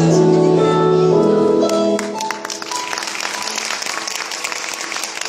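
Music with sustained notes ends about two seconds in, and the audience breaks into applause that goes on to the end.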